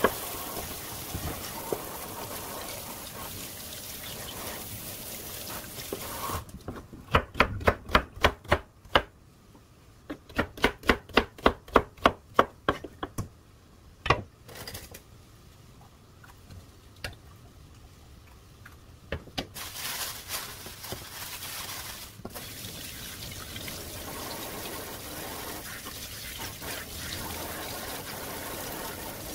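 Kitchen tap running into a stainless steel sink, then a knife chopping on a wooden cutting board in two quick runs of even strokes, about four a second, and the tap running again near the end.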